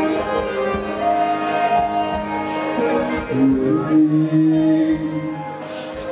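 Live band playing a song, with held chords and a melody line moving through it.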